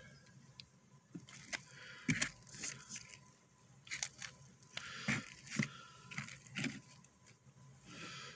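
Dry terrarium decor (moss, bark and substrate) being shifted by hand, giving irregular crunching and rustling with scattered sharp clicks and knocks.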